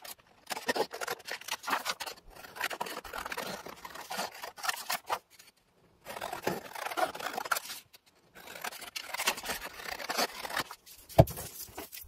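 Scissors snipping along the edge of a sheet of printed scrapbook paper in a run of short cuts with brief pauses, trimming off thin strips, the paper rustling as it is handled. A single low thump near the end.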